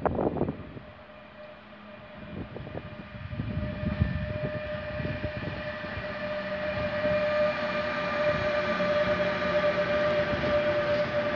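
TRAXX electric locomotive hauling tank wagons through a station: a steady high whine with overtones from its traction equipment grows louder as it approaches and passes, over the low rumble of wheels and wagons. Wind gusts hit the microphone at the very start.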